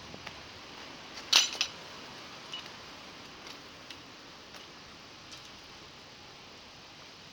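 Metal clinking from a fishing magnet and the scrap wire it has pulled up: one sharp double clink about a second and a half in, then a few light ticks over a steady faint hiss.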